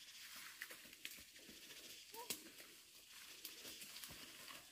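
Near silence with faint rustling of ferns and brush and scattered light ticks, as a person pushes through undergrowth; a short faint chirp about two seconds in.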